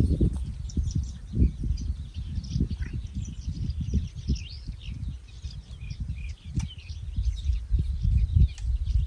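Small birds chirping and calling over an uneven low rumble.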